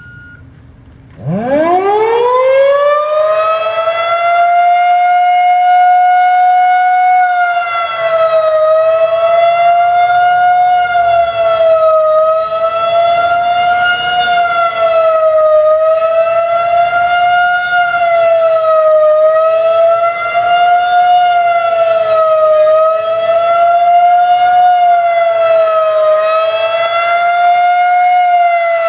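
Federal Signal 2001-130 rotating electromechanical outdoor warning siren winding up from rest about a second in. It climbs quickly to full pitch and then holds a steady tone, which wavers gently every few seconds as the rotating head sweeps past.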